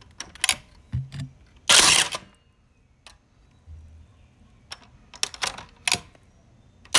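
DeWalt DCN701 cordless cable stapler driving a staple over cable into a wooden board, a loud half-second shot about two seconds in. Light clicks and knocks of the tool being set down and positioned come between shots, and another shot begins right at the end.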